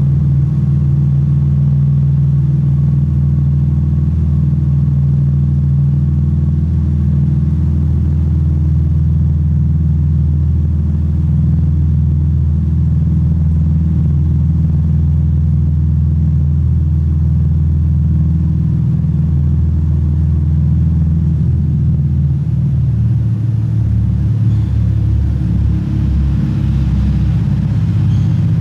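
Toyota Supra Mk4's naturally aspirated 2JZ-GE 3.0-litre inline-six idling steadily with a deep, even exhaust note; the low note wavers slightly in the last few seconds.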